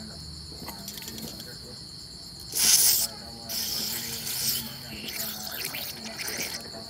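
Aerosol can of contact cleaner spraying through its straw into an idle control valve's stepper-motor housing: one short, loud hiss about two and a half seconds in, then a longer stretch of uneven spraying in several bursts.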